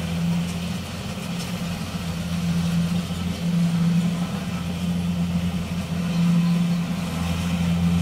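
Kubota DC-40 rice combine harvester running steadily while it cuts and threshes rice, a low engine hum that swells and eases slightly every few seconds.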